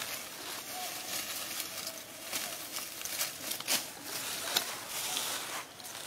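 Dry leaves rustling and crackling as young macaques scamper and scuffle over leaf litter and concrete, with scattered light taps and clicks.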